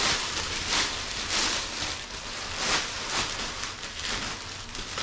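A clear plastic basket bag crinkling and crackling as it is shaken out and pulled open by hand, with irregular louder crackles.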